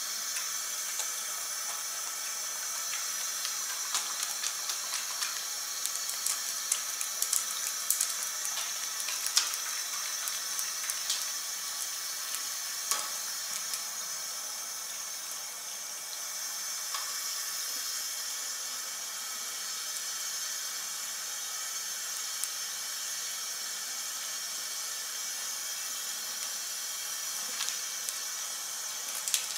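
Bathroom sink tap running steadily as soapy hands are rubbed and rinsed under the stream. Scattered sharp clicks and splashes in the first half.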